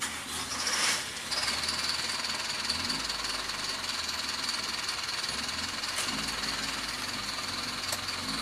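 Cabin sound of a square-bodied Volkswagen Voyage with its AP engine pulling away at low speed: a low engine rumble under a steady high-pitched hiss, after a brief rush of noise in the first second.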